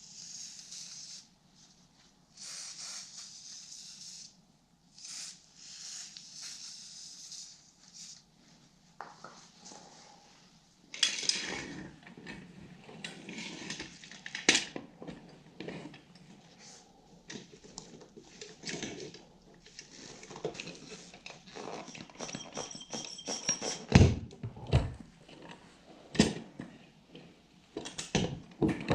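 Hand-tool work on a small motorcycle: irregular metallic clinks, scrapes and handling noises, with short hissy bursts in the first several seconds and a few sharp knocks later on.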